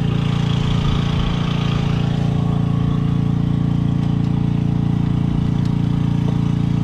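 An engine running steadily at an even idle, a constant low hum with a few faint clicks over it.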